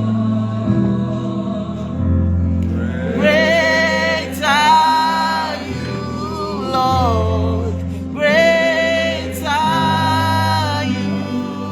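Congregational gospel singing with male and female voices over a sustained keyboard bass, in phrases of a second or two.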